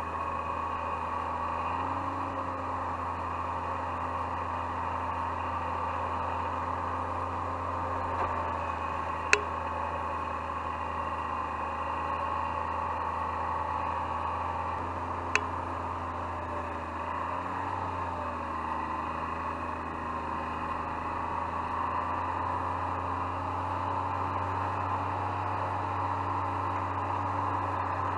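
Snowmobile engine running steadily while towing a snow groomer, with its pitch shifting slightly now and then. Two sharp clicks about six seconds apart.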